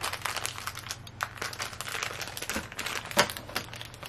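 Thin plastic bag crinkling and crackling as it is handled and squeezed, with one sharper snap about three seconds in.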